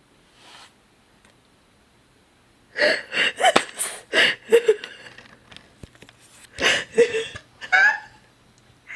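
A woman's frightened gasps and squeals: a quiet start, then a run of short, sharp, breathy bursts from about three seconds in to near the end.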